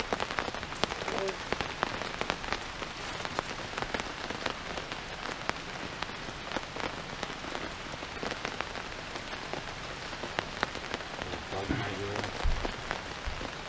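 Steady rain falling on a tarp, an even hiss dotted with many sharp little clicks.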